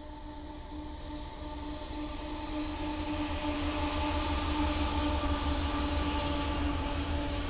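Amtrak GE P42DC Genesis diesel locomotive approaching under power, its engine drone growing louder as it nears. A high steady wheel squeal from the curve swells briefly near the end.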